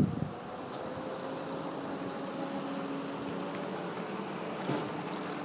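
Steady road and engine noise inside a moving vehicle, with a faint engine hum that slowly rises in pitch.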